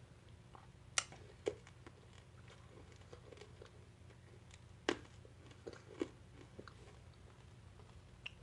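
Teeth biting and crunching a hard cherry cough drop: a few sharp cracks, the loudest about a second in and just before five seconds in, with quieter chewing clicks between.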